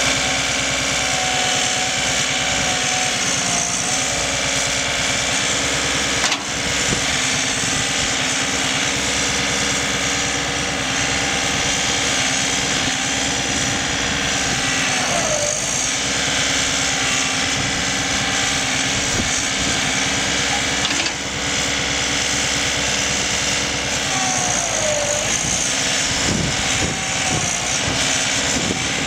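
John Deere 3520 compact tractor's diesel engine running steadily under load while the tractor is stuck in a dirt pile. A higher whine dips in pitch twice, about halfway through and again near the end.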